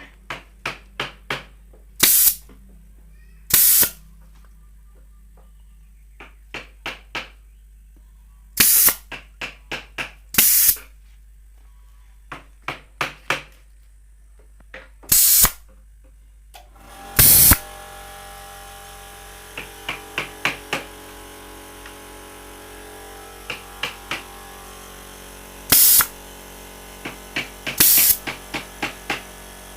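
A pneumatic nail gun firing about eight shots, each a sharp burst with a puff of air, with short runs of light clicks between them. About halfway through, a steady machine hum starts and runs on under the shots, as from the air compressor kicking on.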